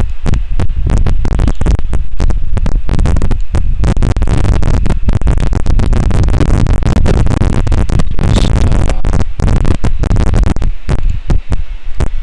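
Loud, continuous low rumbling noise crackling throughout, easing slightly near the end.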